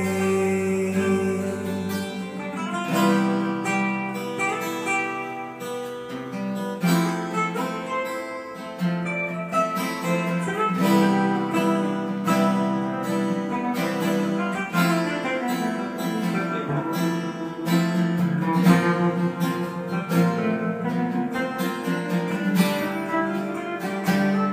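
Instrumental break of a song: acoustic guitar playing, with no singing.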